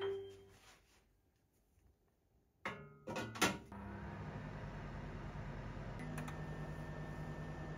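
Clicks and knocks about three seconds in, then the steady hum of a countertop steam convection oven running, with a fast even pulse and a thin high tone added near the end.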